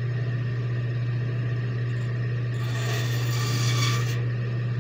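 Bandsaw running with a steady motor hum. About two and a half seconds in, the blade, tilted to 45 degrees, bites into a small piece of wood with a hissy rasp that lasts about a second and a half before it stops.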